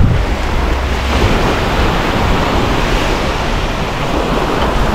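Small waves breaking and washing up a sandy beach: a steady rush of surf noise, with a low rumble of wind on the microphone.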